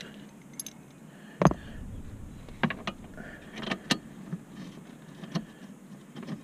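Socket ratchet clicking and knocking as screws are worked loose from the plastic lower dash panel of a pickup. There are scattered sharp clicks and knocks, the loudest about a second and a half in.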